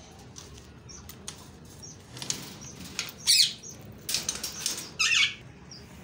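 Aviary birds fluttering their wings in four short bursts in the second half, over faint, repeated short chirps of small cage birds.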